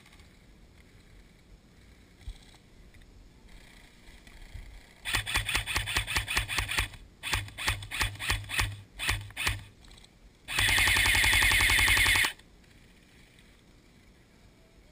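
Airsoft rifle firing on full auto: a burst of about two seconds of rapid shots, then several short bursts, then one longer burst of nearly two seconds, the loudest.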